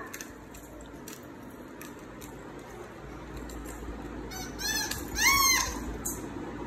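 A toddler's two short, high-pitched squealing calls, rising and falling, a little past four and five seconds in.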